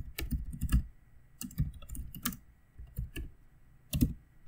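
Computer keyboard typing, keystrokes coming in short irregular bursts with pauses between them, a louder pair of strokes near the end.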